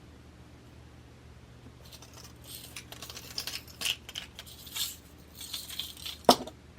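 Fine metal jewelry chain jingling and clinking as it is handled, a dense run of small bright clicks starting about two seconds in. One sharp, louder click comes near the end.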